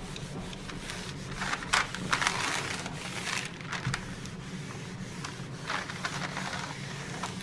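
Mini craft iron sliding and rubbing over a diamond painting canvas under parchment paper, in irregular dry swishing strokes over a low steady hum.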